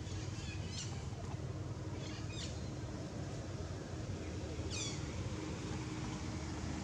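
Three short high-pitched animal calls, each falling in pitch, over a steady low rumble.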